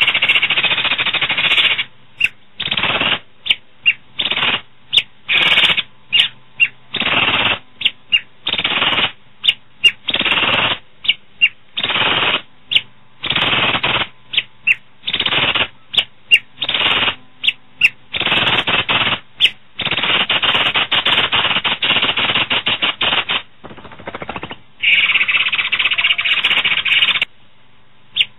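Asian pied starling (jalak suren) singing loudly in harsh, rattling chatter, in many short bursts with brief pauses between them and a longer unbroken run of chatter a little past the middle.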